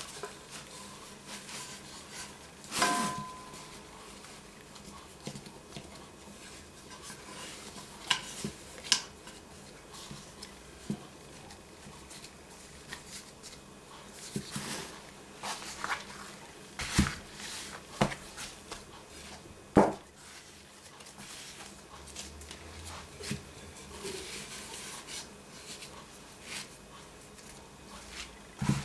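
Metal loaf tins knocking and clinking as they are set down and shifted on a silicone mat, with bread dough pressed into them by gloved hands. Scattered single knocks; the one about three seconds in rings briefly.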